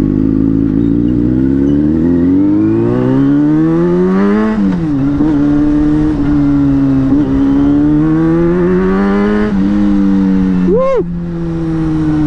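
Motorcycle engine heard from the rider's seat, pulling hard with its note rising, dropping sharply on an upshift about four and a half seconds in, then climbing again. Near the end it gives a short, sharp blip of the throttle and then eases off.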